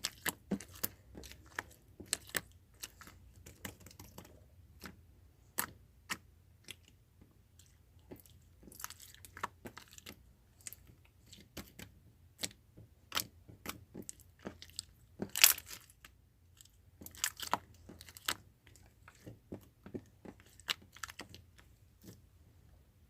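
Irregular clicks and crackles, a few to several a second, with the loudest burst about fifteen seconds in.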